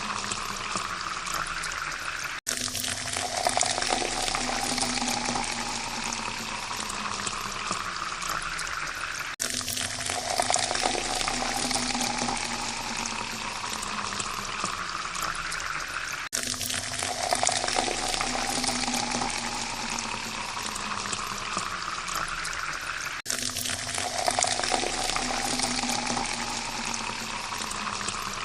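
Water pouring into a glass, a rising tone climbing steadily as the glass fills. The pour cuts off abruptly and starts over roughly every seven seconds, four times.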